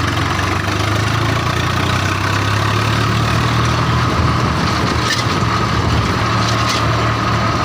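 Swaraj tractor's diesel engine running steadily, a low even drone.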